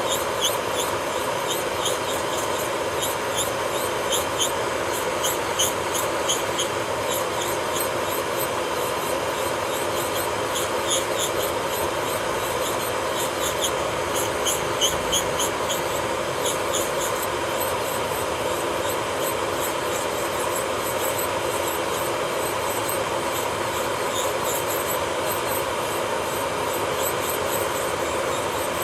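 Electric nail drill running at a steady speed with a constant whine, its bit working on a fingernail. Many short, high squeaks come through over roughly the first half.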